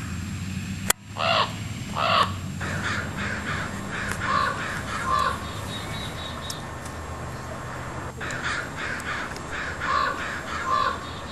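A sharp click about a second in, then crows cawing over and over, several harsh caws overlapping, in a bird-attack scene.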